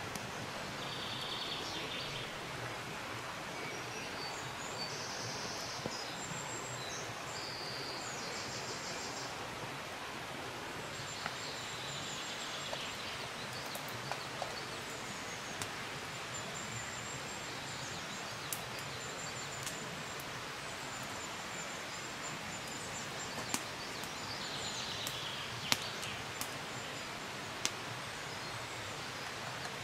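Woodland ambience: a steady even rush with small birds singing in short phrases now and then, and a handful of sharp cracks, the loudest near the end.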